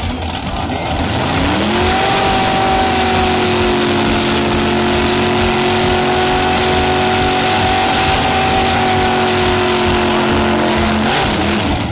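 1971 Plymouth Duster 340's small-block V8 doing a burnout. The engine revs up over about a second and holds at steady high revs while the rear tyres spin, then drops off shortly before the end.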